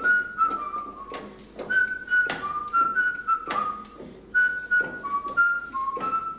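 A tune whistled in short held notes that step up and down. Sharp clicks come about every half second to second, from a red trolley jack being pumped under a car.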